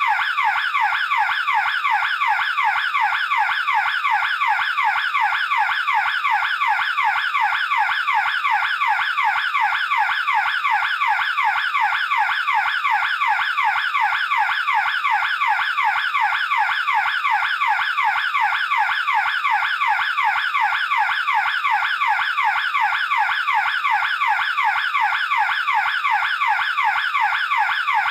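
Burglar alarm siren sounding continuously: a loud, steady electronic warble that sweeps in pitch several times a second, without a break.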